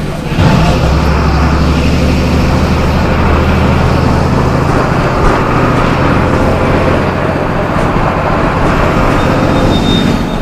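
MWM 6.12 TCAE six-cylinder turbodiesel of a Volksbus 17.210 bus running on the move. The engine note dips briefly at the start, then runs steady at lower revs.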